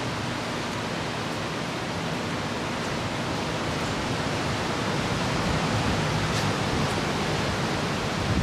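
Ocean waves breaking on a shore: a steady wash of surf that swells louder about five seconds in.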